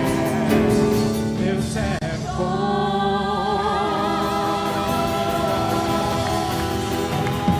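Worship band and singers performing a Christian worship song. Voices hold long notes with vibrato over the accompaniment, with a brief break about two seconds in.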